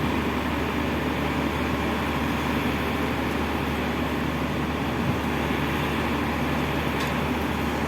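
Gantry crane machinery running with a steady low hum and drone.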